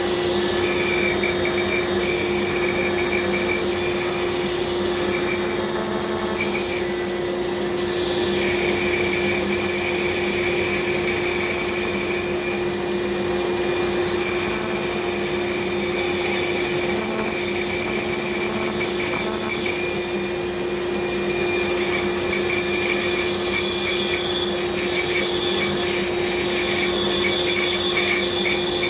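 A woodworking power tool running steadily, its motor holding one constant humming tone. A scratchy sound of the tool working wood comes and goes over it.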